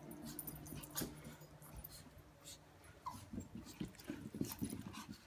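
Chihuahuas whimpering and stirring, with scattered faint clicks and one brief high whine about three seconds in.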